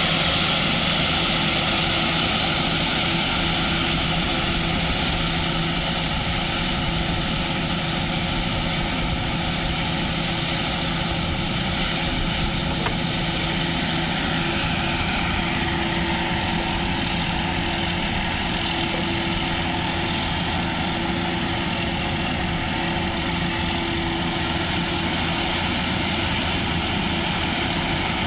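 Engine of a rice harvesting machine running steadily at a constant speed, a continuous even drone with a steady hum.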